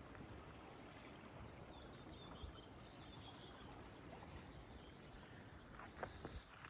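Near silence with the faint, steady rush of river water in a gorge below.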